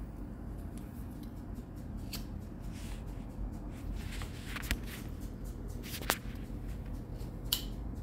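Quiet room hum with a handful of short, sharp clicks and ticks; the loudest comes about six seconds in.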